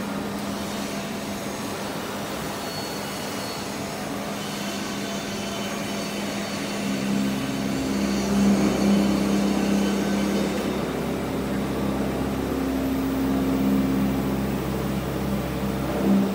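A steady mechanical hum with a low droning tone. It grows louder and deeper about seven seconds in.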